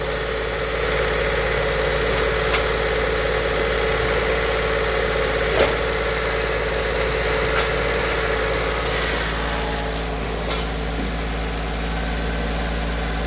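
Volkswagen Polo's newly replaced engine idling steadily, with a few light clicks. A steady whine in the engine note stops about two-thirds of the way through.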